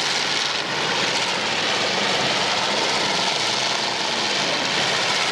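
Engines of several full-size demolition derby cars running together, a loud, steady mass of engine noise.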